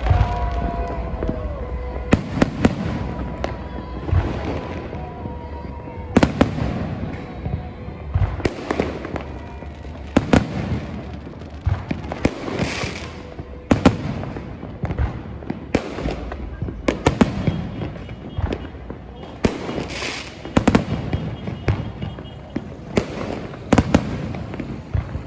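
Fireworks going off: a dense, irregular run of bangs and crackles, several a second, with louder clusters of bursts every couple of seconds.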